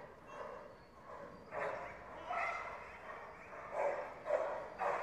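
Young German Shepherd police dog barking repeatedly at its handler, starting about one and a half seconds in. This is a bark indication, the trained alert signal in a hold-and-bark exercise.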